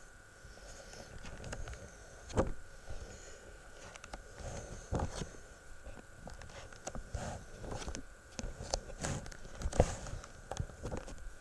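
Sheets of paper being handled and leafed through on a table: scattered rustles, taps and small knocks, over a faint steady high hum.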